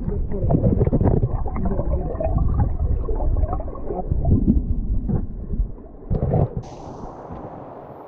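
Creek current heard through an underwater camera's housing: a muffled, low rush of moving water and bubbles. About six seconds in it turns quieter and a thin hiss of the stream in open air comes in as the camera leaves the water.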